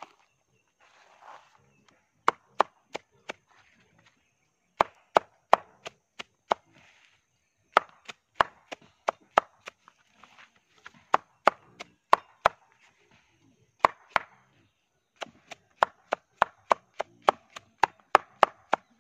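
Machete chopping a banana stem into small pieces on a wooden board: sharp knocks about three a second, in runs with short pauses between, and a little scraping of the pieces.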